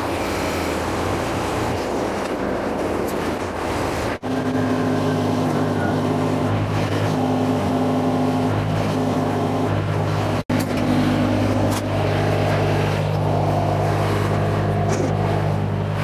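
Tractor engine running steadily at a constant speed, with two sudden momentary breaks about four and ten seconds in.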